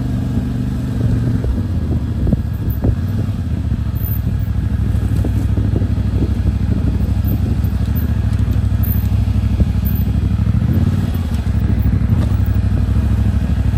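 CFMOTO 450MT's parallel-twin engine running steadily at low revs, with a few knocks and rattles about two to three seconds in.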